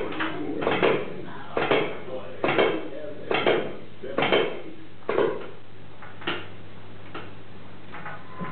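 Metal clinking from a Hoggrel weight machine's weight stack, one rep after another: paired clinks about once a second, turning into single, fainter clinks about halfway through.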